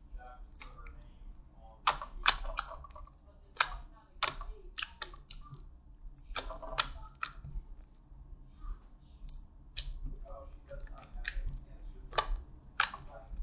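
Clear blue slime with beads mixed in being stretched, folded and pressed by hand, giving irregular sharp clicks and pops.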